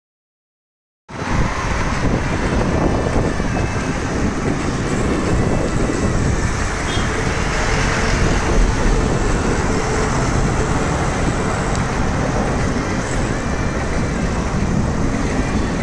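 Silence, then about a second in steady city road traffic noise starts, heard from among cyclists riding through traffic.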